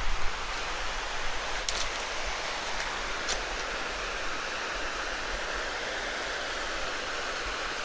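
Mountain stream rushing steadily below, an even hiss of running water, with a few faint clicks near the start.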